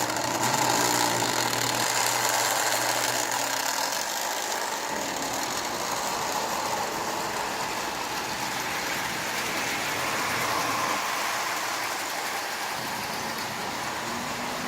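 Marx Commodore Vanderbilt electric toy locomotive, refitted with a double-reduction 666 motor, running steadily around the track while pulling a long train of tin litho cars: an even whir of motor and gearing mixed with the rolling rattle of wheels on the rails. It starts at once and holds the same level, and the locomotive is running well.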